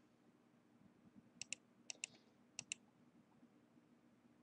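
Computer mouse clicking: three quick double clicks, each about half a second after the last, over a faint steady hum.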